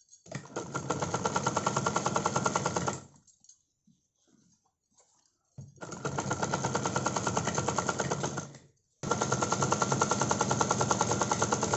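Usha sewing machine stitching a temporary basting seam in three runs of about three seconds each, with short pauses between them. The needle mechanism chatters at a rapid even pace, about seven stitches a second.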